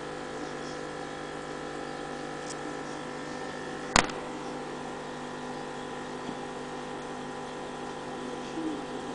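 Aquarium pump humming steadily with several fixed tones, and one sharp click about four seconds in.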